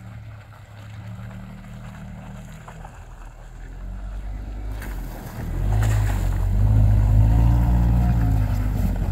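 Quad bike (ATV) on oversized low-pressure tyres with its engine running as it crawls through bog mud. About halfway through it gets much louder as it comes close past, the engine revving up and easing off.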